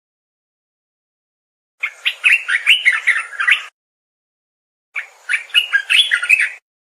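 Olive-winged bulbul (merbah belukar) singing: two short phrases of quick, bubbling warbled notes, the first starting about two seconds in and the second about a second after it ends, with dead silence between.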